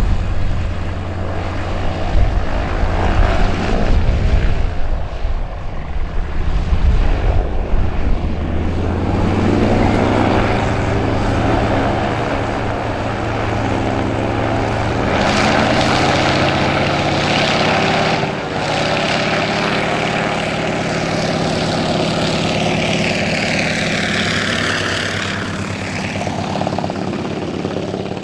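Piston radial engine and propeller of a small agricultural plane, running with a low throb, then speeding up about nine seconds in and running louder and higher as the plane taxis along the runway.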